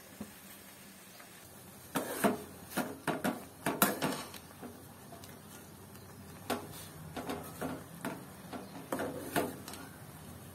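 Metal spoon stirring noodles in a metal cooking pan, knocking and scraping against the pan in two bouts of clinks, about two seconds in and again from about six and a half seconds in.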